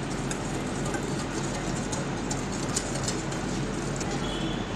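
Wire whisk stirring dry flour and powdered sugar in a glass bowl: soft scraping with faint scattered ticks over a steady low hum.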